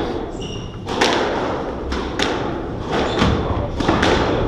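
Squash rally: the rubber ball struck by rackets and smacking off the court walls, a string of sharp knocks about one a second, with a brief squeak of shoes on the wooden floor near the start.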